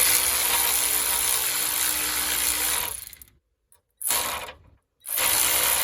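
Cordless impact wrench running a nut onto the new drop link's stud, driving it in. It runs for about three seconds, stops, gives a short burst about four seconds in, and starts again a second later.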